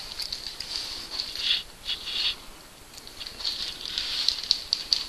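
A cat chewing food close to the microphone: quick, irregular small clicks and crackles, with a lull about halfway through.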